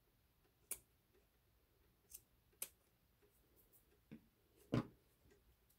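Small scissors snipping lace trim, three quiet sharp snips in the first three seconds. Near the end come two duller knocks, the second the loudest sound, as the lace and spine are pressed by hand.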